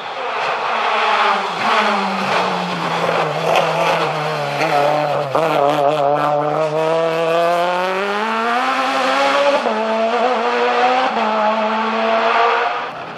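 A small hatchback rally car's engine at speed. Its note drops as the car slows about two seconds in and holds low, then climbs again under acceleration from about eight seconds. It steps up and down with gear changes near the end.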